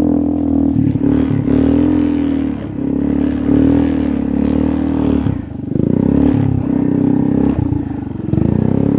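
Small off-road engine of a red Honda three-wheeler running under way on a rough snowy trail, its revs rising and falling with the throttle and dropping briefly about a third of the way in, past the middle and near the end. Light clatter and scraping over bumps.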